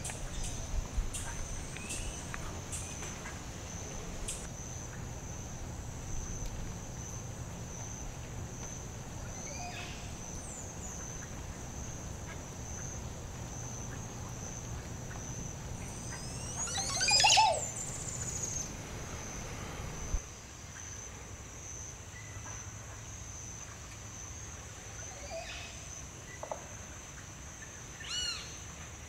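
Rainforest ambience: a steady, evenly pulsing high insect drone with scattered bird calls. About two-thirds of the way through comes a loud, gurgling call of several sweeping notes, the song of a Montezuma oropendola.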